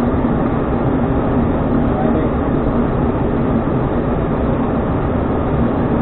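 Steady drone of an ATR twin-turboprop airliner's engines and propellers, with airflow noise, heard from the flight deck on final approach. A low steady hum runs through it.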